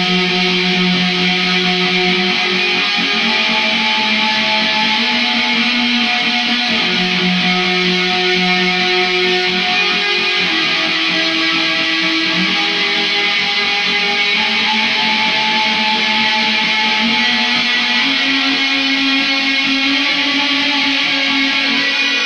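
Post-rock-style guitar loop playing back. Layered electric guitars, run through amp-simulator, chorus and delay effects, hold ringing notes that shift every few seconds at a steady level.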